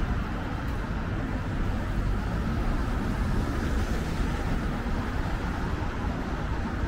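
Steady city street noise, mostly a low rumble of road traffic, with no distinct events standing out.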